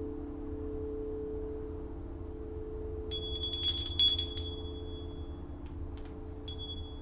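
A singing bowl rings with a steady low tone that slowly fades. About three seconds in, a small high-pitched chime is struck in a quick cluster of strikes and rings out; it is struck once more near the end.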